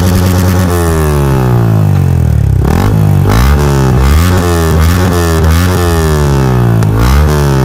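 Yamaha MT-15's single-cylinder engine revving through an aftermarket exhaust with a dB killer fitted. It holds a steady rev, lets it fall slowly, then gives a run of about eight quick throttle blips that rise and drop back.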